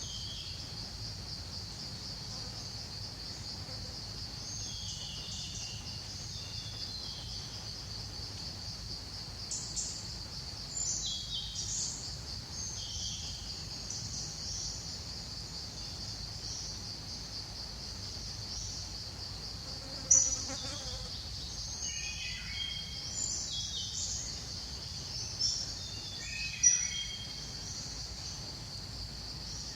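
Steady high-pitched insect drone, like crickets or cicadas, running unbroken, with scattered short high chirps over it, thickest in the second half.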